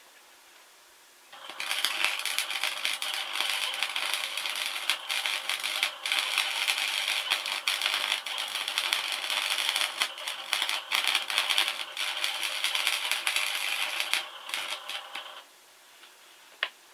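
MIG welder arc crackling and spitting steadily for about fourteen seconds, starting a second or so in, with a couple of brief breaks in the bead. A single sharp click near the end.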